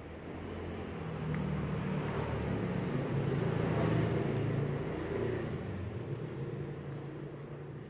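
A motor vehicle passing by, its engine drone and road noise swelling to a peak about four seconds in and then fading away.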